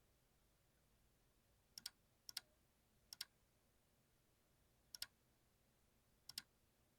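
Mechanical keyboard with TTC clicky switches, keys pressed one at a time: five separate sharp clicks, each a quick double click, at uneven intervals.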